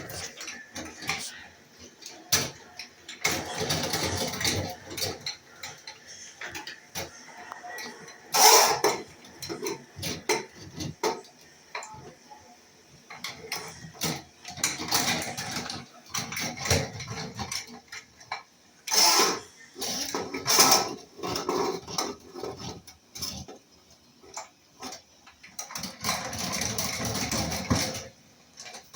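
Irregular knocking and clattering of tools and pipe parts during plumbing work, with sharp clanks about eight seconds in and twice around twenty seconds in.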